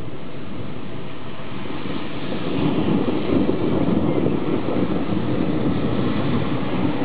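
Rolling thunder: a low rumble that swells about two and a half seconds in and carries on, over a steady hiss.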